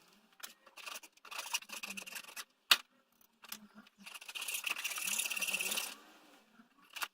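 Wood rubbing and scraping against wood in short rasping strokes, with a longer stretch of rasping about four seconds in and a single sharp knock a little before three seconds in, as a small wooden piece is worked and tapped into a wooden pipe.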